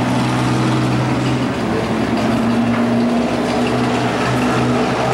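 Race pickup truck engines running at speed as two trucks lap the track, a steady engine drone that dips and rises slightly in pitch.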